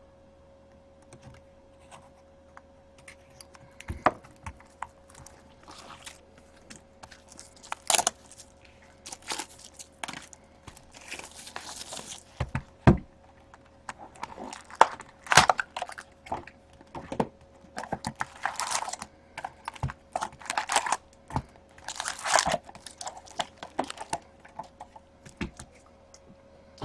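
Plastic shrink-wrap being torn and crumpled off a sealed box of trading cards, with irregular crinkles, rips and taps starting about four seconds in.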